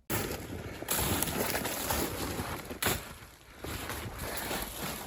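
Wind buffeting the microphone, mixed with the rustle and crunch of a hiker's footsteps climbing rough, snowy ground. It starts abruptly, with a couple of sharp knocks about a second in and near three seconds.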